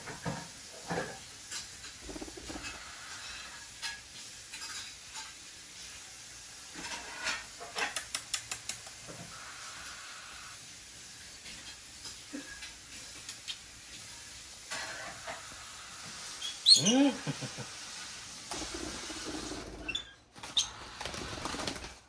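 Pet parrots on a person's shoulders and chest, with soft rustling and scattered light clicks, a quick run of clicks around eight seconds in, and one short loud squawk about seventeen seconds in.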